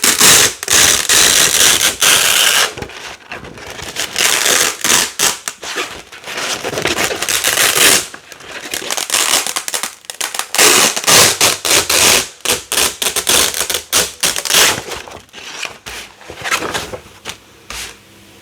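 Black hook-and-loop (velcro) plates being pulled apart again and again, a loud crunchy ripping crackle in long peels with brief pauses, thinning out to a few separate rips near the end.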